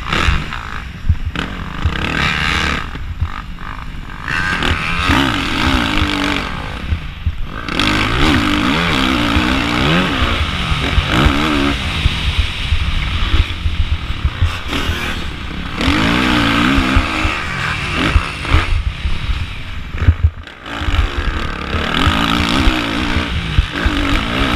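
Suzuki RM-Z450's four-stroke single-cylinder engine revving up and dropping again and again as the throttle is opened and shut. It is heard from an onboard camera with heavy wind rumble on the microphone, and there is a brief lull about twenty seconds in.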